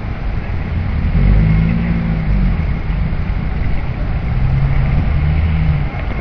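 City street traffic: a steady low rumble with a vehicle engine passing twice, its hum rising and then falling in pitch each time.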